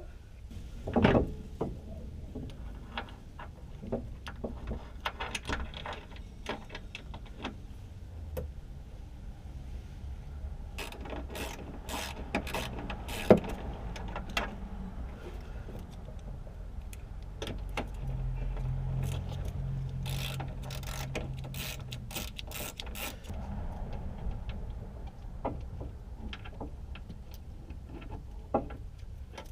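Hand tools working on car suspension bolts: scattered ratchet clicks and metal clanks and knocks, with a couple of sharp louder knocks and a low steady hum for a few seconds past the middle.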